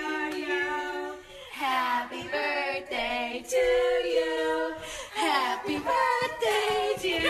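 A high voice, a child's or a woman's, singing long held notes that bend in pitch, with short breaks between phrases.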